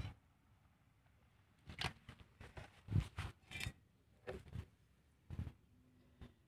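Sparse handling noises at a pot of freshly caught fish: a few brief knocks and rustles, the strongest a low thump about three seconds in.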